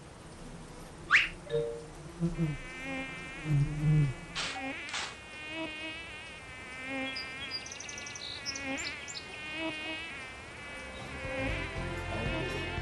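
A mosquito's high whining buzz that wavers up and down in pitch as it flies about, starting about two seconds in and going on almost to the end. A few quick rising swooshes come before it and early in it.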